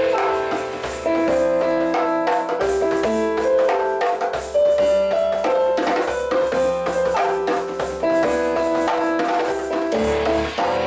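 A Roland digital piano and a djembe playing together: a melody of held piano notes over hand-struck djembe strokes.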